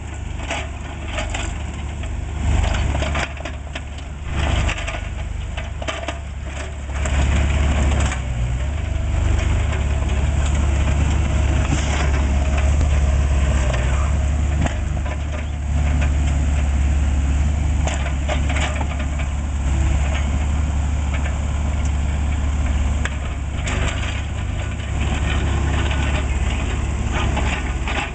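Cat 303.5 mini excavator's diesel engine running steadily, with repeated scraping, cracking and knocking as its bucket tears up old asphalt paving and drops the broken chunks.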